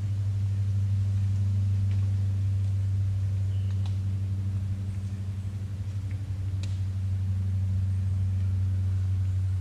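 Steady low mechanical hum, one deep tone with a fainter higher one above it, unchanging throughout. A couple of faint short clicks come about four and seven seconds in.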